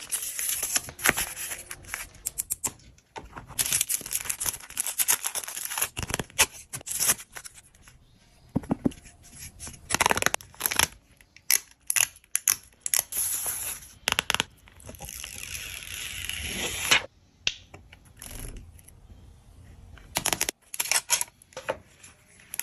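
Packaging being handled and opened: bursts of rustling and tearing, broken by many sharp clicks and taps, with short quiet gaps between.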